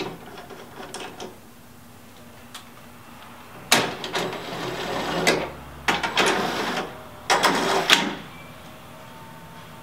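Cordless DeWalt impact driver running in bolts on a snow-bike mount side plate in three bursts, about four, six and seven and a half seconds in, the first the longest. Light metal clicks of parts being handled come in the first second or so.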